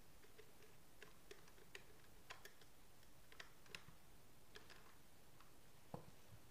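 Faint, irregular small clicks and ticks of a screwdriver turning a brass terminal screw on a switch in a plastic PVC switchboard while a wire is pressed into place, with one slightly louder click near the end.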